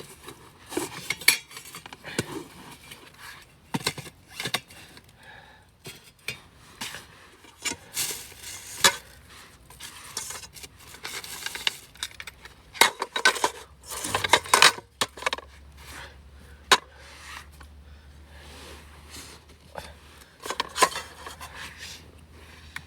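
Metal camp cookware and utensils clinking and clattering as they are handled: an irregular string of sharp knocks and clinks.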